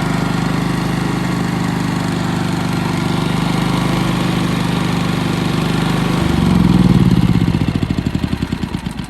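Westinghouse iGen4500 inverter generator's engine running on gasoline, steady and even. It has started on its own without the choke being moved by hand, now that a loose choke cable is reconnected. About six seconds in the sound changes, swells briefly, then slows into spreading pulses as the engine winds down.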